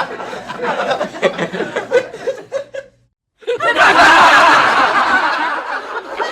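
A small crowd laughing and chuckling. The laughter cuts off suddenly about three seconds in, there is a brief moment of silence, and then a second, louder outburst of group laughter begins and slowly tapers.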